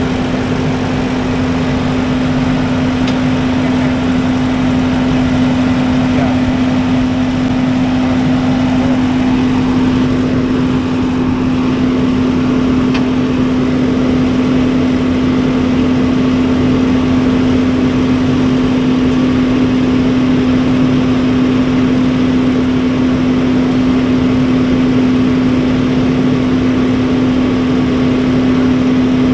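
Heavy equipment engines running with a steady drone and a constant hum as a telehandler forklift crawls up the tilted bed of a rollback truck.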